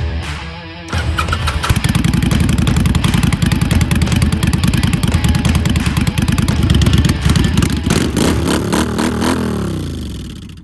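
Motorcycle engine starting about a second in and running loud and steady, then its pitch sweeps down and the sound fades out near the end.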